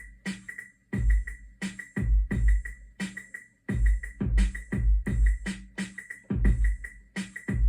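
Eurorack drum pattern from a Bitbox sampler triggered by a Div Skip rhythm machine on a Stolperbeats groove template. Deep kicks and sharp high clicks fall in uneven, stumbling groups with short gaps between them, over a steady high ringing tone.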